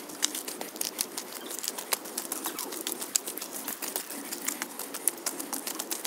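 Rain pattering: a dense, irregular ticking of drops, several a second.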